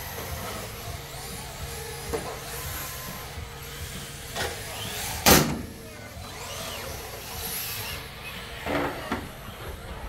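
Electric RC drift cars running on a carpet track, their motors giving faint rising and falling whines. Scattered knocks, and one loud sharp knock about five seconds in.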